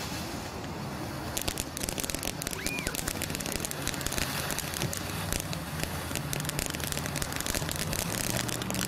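Black Cat Top Cat ground fountain firework burning: a steady hiss of spraying sparks that breaks into rapid, dense crackling from about a second and a half in.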